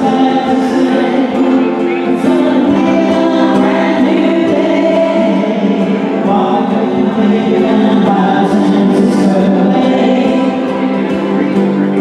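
Small acoustic band playing a tune on guitars, with several voices singing together in long held notes.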